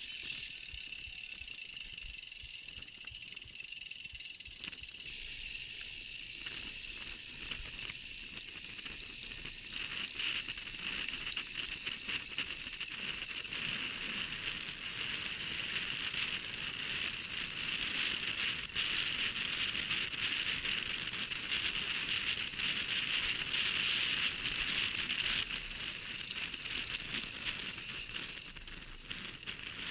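Mountain bike riding over a rough, rutted dirt track: tyres crunching on dry dirt and the bike rattling and clicking over bumps, with a steady hiss. It gets louder about ten seconds in.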